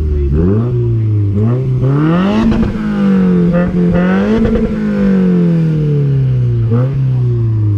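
2017 Subaru WRX's turbocharged 2.0-litre flat-four revved while parked, heard through a newly fitted Tomei cat-back exhaust. A quick blip comes first, then the revs climb and hold twice, and near the end they fall slowly back toward idle.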